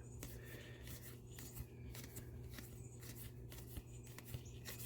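Faint scratchy ticks and soft clicks of trading cards being handled and slid past one another, over a steady low hum.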